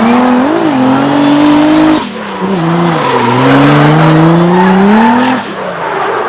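Race car engine sound effect: an engine revving high, its pitch dipping and climbing again, in two runs with a short break about two seconds in, then dropping off near the end.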